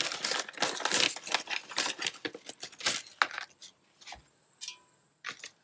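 Packet of dried bay leaves crinkling and rustling as the leaves are taken out. The rustling is dense for about three seconds, then thins to a few scattered clicks.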